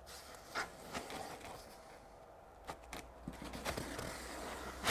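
Hands pressing and smoothing a sheet of card onto a silicone-coated polystyrene wall, giving a handful of short scrapes and creaks of the card, several close together in the second half.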